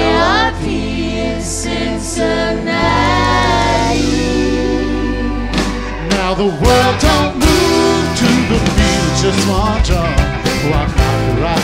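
Live band playing with singing: held keyboard chords and a sustained bass line under voices holding and sliding on notes, then the drum kit comes in about six seconds in with a quicker, driving beat, as the medley moves into the next theme.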